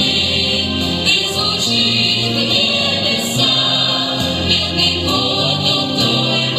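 A vocal ensemble singing together over instrumental accompaniment, with held bass notes changing every second or two.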